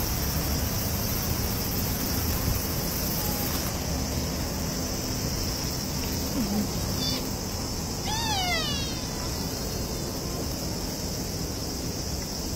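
Steady outdoor background with a constant high insect drone; about eight seconds in, a short high call slides down in pitch, and a similar one comes near the end.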